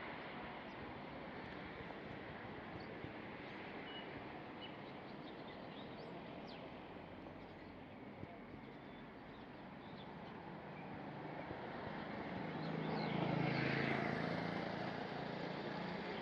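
Outdoor street ambience: a steady background hum with a few faint bird chirps. A motor vehicle passes, growing louder past the middle and fading near the end.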